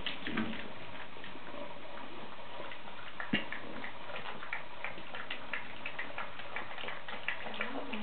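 Saluki puppies eating from a stainless-steel bowl: a run of irregular light clicks and ticks, several a second, with one louder knock a little over three seconds in.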